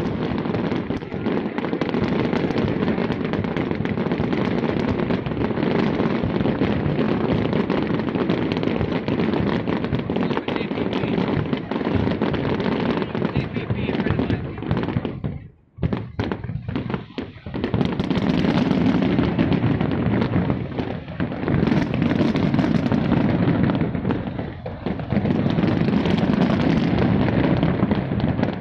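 Aerial fireworks bursting in quick succession, a dense, continuous run of bangs and crackling. The sound cuts out briefly a little past halfway, then the barrage resumes.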